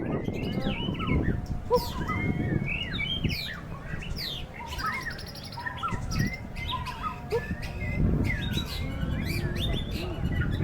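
White-rumped shama singing a varied song of quick whistled notes, some rising, some falling and some arching, over a steady low rumbling noise.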